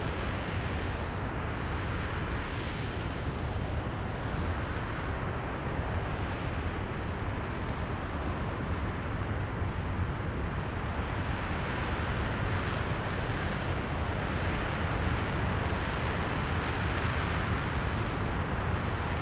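RS-25 hydrogen-oxygen rocket engine in a sustained hot fire on a test stand: a steady, unbroken rushing noise with no change in level.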